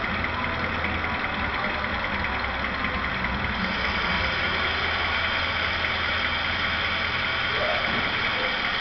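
ESU LokSound decoder in a model Vossloh G2000 diesel locomotive playing the diesel engine idling sound, steady throughout. About three and a half seconds in, a steady high hiss joins it.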